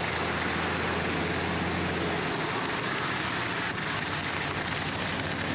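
A vehicle driving in rain: a steady hiss of rain and wet road, with a low engine hum that drops away a little over two seconds in.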